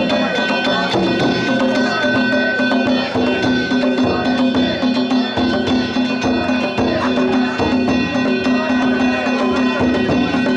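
Danjiri festival music: drums and metal gongs struck in a fast, continuous rhythm, with steady ringing tones over the beat.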